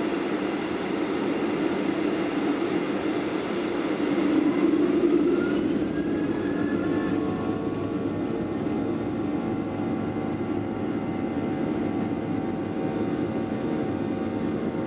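Airliner's jet engines heard from inside the cabin during taxi onto the runway: a steady rumble and hiss with a thin whine. About four seconds in, a whine rises in pitch over a few seconds as the engines spool up, then holds steady.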